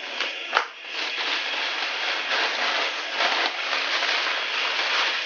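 Packaging crinkling and rustling as hands rummage through a parcel: a continuous crackly rustle with a few sharp clicks near the start.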